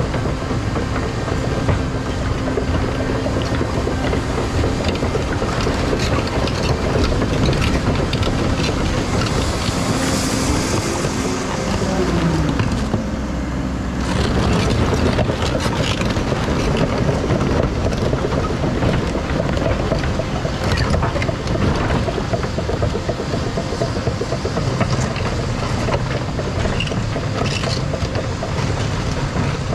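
Caterpillar 335 excavator working: the diesel engine and hydraulics run under load, and the engine pitch rises and falls once near the middle. From about halfway on, irregular knocks and scrapes from rock join in.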